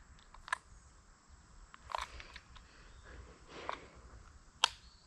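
A few faint, scattered clicks and crackles at irregular intervals, the loudest a sharp click about four and a half seconds in.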